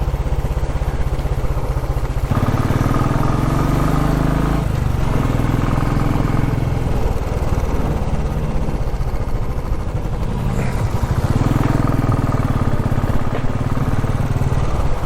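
Royal Enfield Classic 350's single-cylinder engine running while riding. Its pitch rises about two seconds in, eases off, then rises again near the end as the speed changes.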